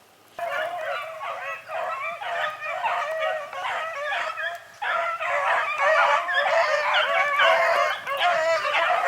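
A pack of beagles baying together in full cry, many overlapping voices, on the trail of a rabbit. It starts suddenly just under half a second in and thins briefly a little before the middle.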